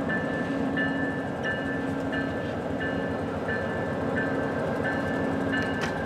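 Level-crossing warning bell ringing in a steady rhythm, about three rings every two seconds, over the rumble of a VIA Rail P42DC diesel locomotive and its passenger train rolling slowly past.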